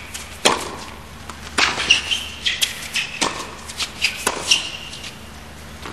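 Tennis rally: racket strikes on the ball about once a second, with short high squeaks of players' shoes on the hard court between shots.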